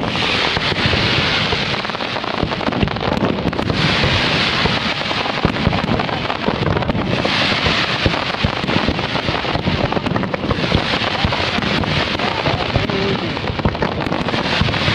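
A dense barrage of fireworks: many rockets launching and bursting in quick succession, blending into one continuous crackling rumble. Waves of hissing crackle swell up every three or four seconds.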